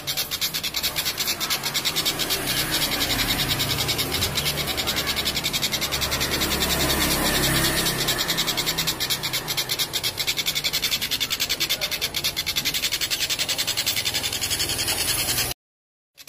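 Kingfisher giving a long, fast rattling cackle ('ngekek') of about ten notes a second, going on without a break until it cuts off suddenly near the end.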